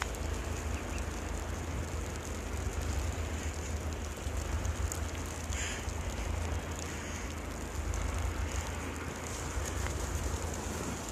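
Wind buffeting the microphone with a steady low rumble, over a fine crackling hiss.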